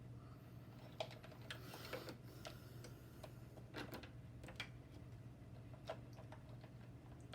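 Faint, irregular clicks and taps of small metal hardware being handled as the battery terminal screw and cable lugs are fitted to a motorcycle battery, over a low steady hum.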